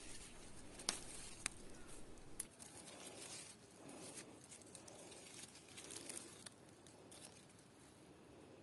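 Faint rustling with two sharp clicks about half a second apart, about a second in, then softer scattered rustles that fade away.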